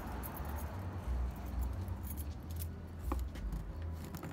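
Wind buffeting the microphone as a low, uneven rumble, with a few light clicks and some jingling from handling.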